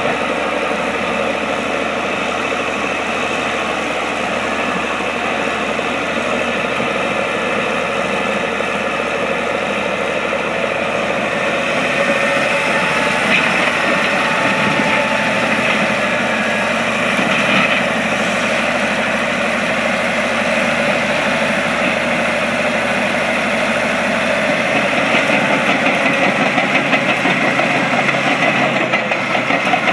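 1990 Caterpillar D7H Series II crawler dozer's diesel engine running as the machine travels and turns, with the clatter of its steel tracks. It gets louder about twelve seconds in and more uneven near the end.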